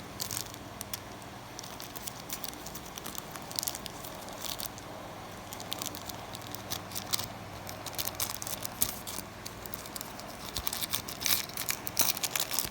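Close handling of a lighter box and its papers: scattered crinkles and small clicks, coming thickest near the end.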